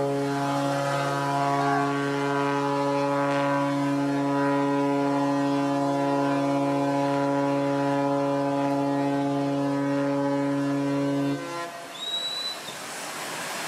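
Ship's horn sounding one long, steady blast that cuts off about eleven seconds in, leaving a rushing background noise with a brief high chirp.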